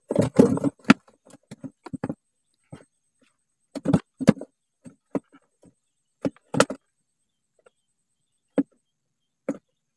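Irregular knocks and rattles of gear being handled, a dense clatter in the first second, then single knocks every second or two.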